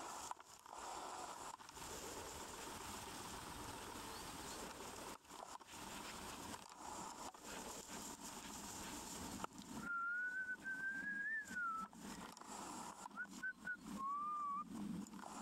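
A person whistling: one long, slightly rising note lasting about two seconds, followed by a few short notes near the end. Before the whistle, a steady rustling hiss.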